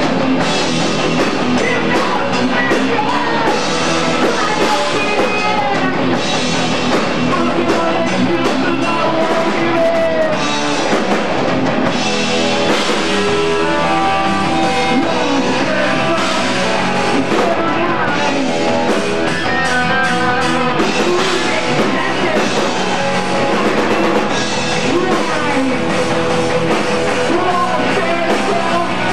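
Hardcore punk band playing live: distorted electric guitar and drum kit with vocals, loud and continuous, on an 8 mm camcorder recording.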